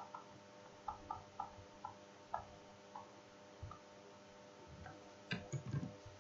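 Faint, irregular taps and ticks of a stylus on a tablet screen during handwriting, about ten in all, a little louder near the end, over a low steady electrical hum.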